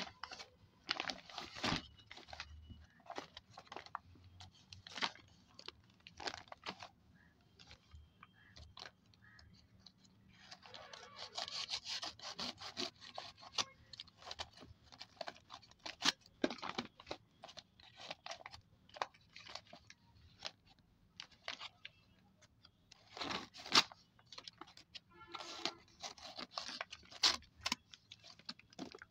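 Brown paper courier bag handled and torn open by hand: irregular crinkling and rustling of the paper with sharp rips and crunches, a longer stretch of rustling in the middle and one loud rip about two-thirds of the way through.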